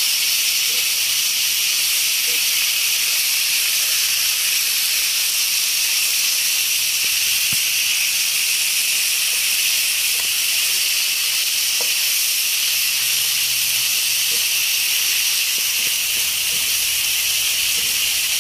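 Chicken pieces sautéing in hot oil with ginger, garlic, onion and tomato in a nonstick frying pan: a steady, even sizzle.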